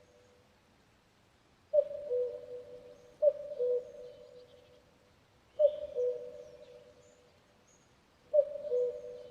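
Cuckoo calling its two-note "cuck-oo", a higher note dropping to a lower one, four times at uneven gaps. Faint chirps of other birds sound between the calls.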